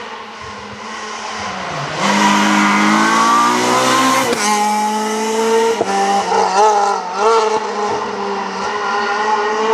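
Renault Clio rally car passing at speed. Its engine comes up loud about two seconds in, the pitch climbs to an upshift a little over two seconds later, then the revs rise and fall through further gear changes as the car passes and pulls away.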